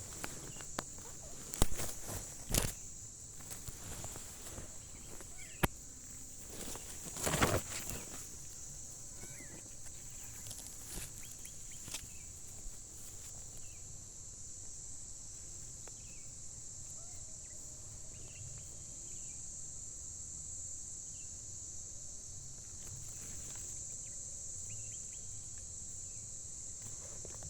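A steady high-pitched insect chorus runs throughout. Sharp clicks and knocks come in the first eight seconds, the loudest a heavier thump about seven seconds in.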